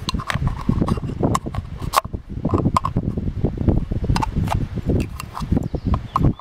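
Plastic travel paint palette case being handled and pulled open: a quick, irregular run of knocks, clicks and rattles.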